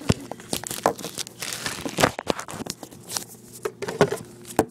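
Handling noise: irregular clicks, knocks and rustling from a handheld phone being moved about and rubbed by fingers close to its microphone.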